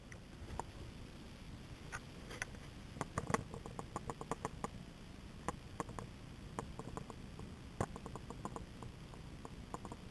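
Neff washing machine running quietly, a low hum under many irregular light ticks and clicks, thickest a few seconds in.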